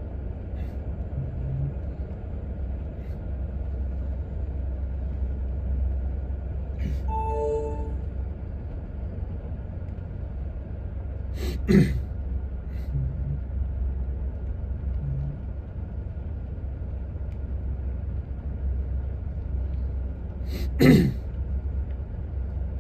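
Steady low rumble of a Norfolk Southern freight train of autorack cars rolling past, heard from inside a car. Twice, about halfway through and near the end, a person coughs, louder than the train.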